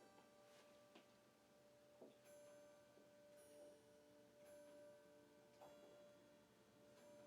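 Bell tower chimes, heard faintly, playing single notes one after another about a second apart, each ringing on as the next is struck, with a few faint clicks among them.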